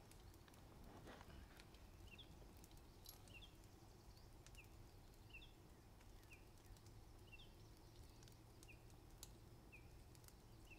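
Near-silent outdoor ambience: a bird chirping faintly, short high falling notes about once a second, some in pairs, with a few faint clicks.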